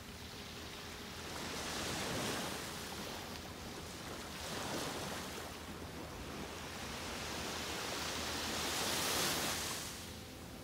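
Small waves breaking gently and washing up a sandy beach, swelling and fading every few seconds, with the loudest wash near the end.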